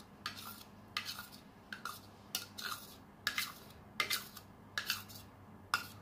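Metal spoon clinking repeatedly as it scrapes thick sweetened condensed milk out of a cup into a stainless steel mixing bowl: short light clinks, often in pairs, roughly once every three-quarters of a second.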